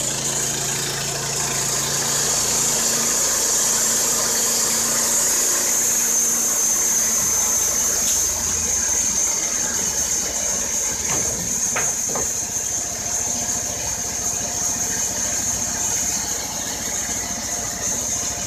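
Wood-Mizer LT15 band sawmill with its 15 hp Kohler Pro-15 petrol engine running under load as the band blade cuts along a pine log, with a steady high whine over the engine. A few sharp knocks about eleven seconds in, as the saw head reaches the end of the cut.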